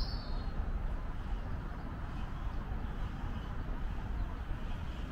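Steady low outdoor rumble with no distinct events, and a short bird chirp at the very start.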